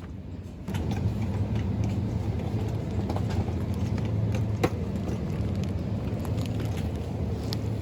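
Steady low mechanical rumble with a hum, starting abruptly about a second in, with scattered light clicks and one sharp click midway.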